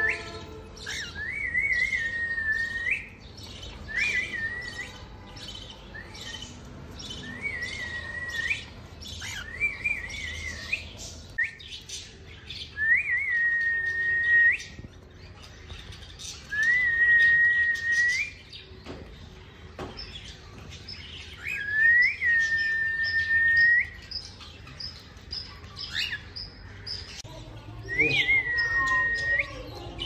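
Cockatiels calling. They give repeated whistles, each opening with a short warble and settling into a held note, roughly every two to four seconds. Quick high chirps run throughout.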